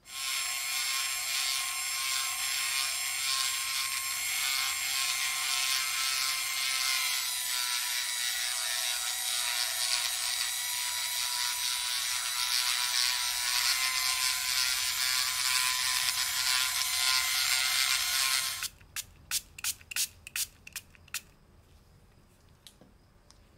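Electric rotary tool running at high speed with a felt polishing bob pressed against a clear crystal block, a steady high whine. It stops abruptly after about eighteen seconds, followed by a quick run of about ten sharp clicks.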